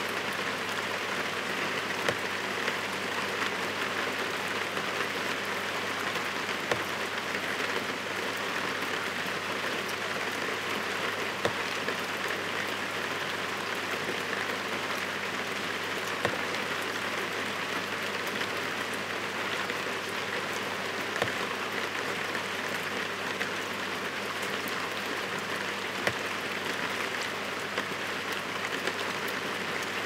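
Heavy rain falling steadily: a dense, even hiss, with a few sharper drop impacts standing out every several seconds.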